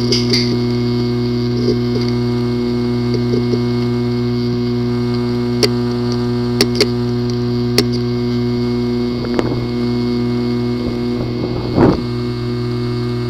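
Failing hard drive running with a steady hum, struck now and then by sharp clicks, several close together around the middle, and two duller knocks near the end. Clicking like this is the sign of a physically damaged disk assembly (heads and platters).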